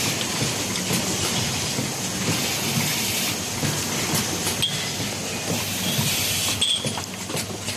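Automatic resistance spot welding machine running on electric motor parts: a steady hiss of machine noise with scattered sharp clicks.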